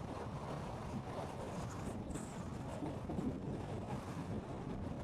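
Steady low rumble of a car driving, with wind noise over it.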